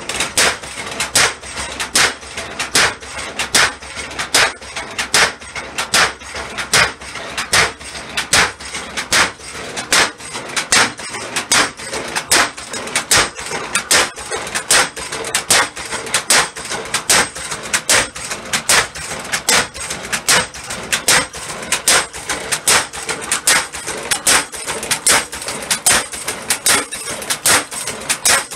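Homemade cam-driven blacksmith power hammer running, its ram striking in a steady, even rhythm of about three blows every two seconds, with a faint ringing under the blows. It is being test-run just after its new cam was fitted.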